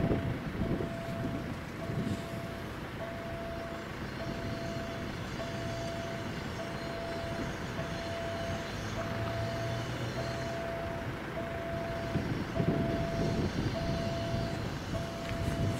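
Railway level crossing warning signal beeping steadily at one pitch, about one beep every 1.2 seconds, as a freight train approaches. Low wind rumble on the microphone comes and goes.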